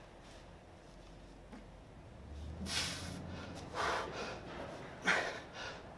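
A man's forceful breaths through the nose, three sharp exhales about a second apart, from the effort of seated dumbbell shrug reps.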